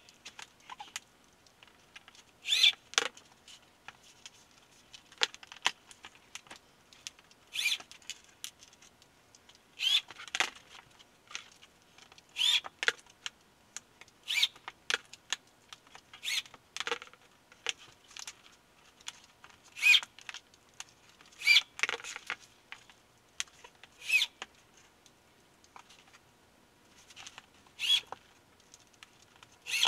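Corded electric drill driving 1-inch screws into a plywood floor panel: a short burst of high whirring, one screw at a time, about every two to three seconds.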